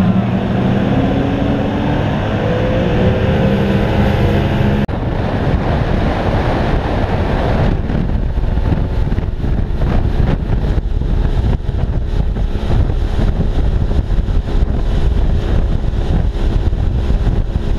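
Outboard motor running at speed, its pitch rising slightly. About five seconds in, it gives way abruptly to heavy wind buffeting on the microphone over rushing water and spray from a fast-running boat.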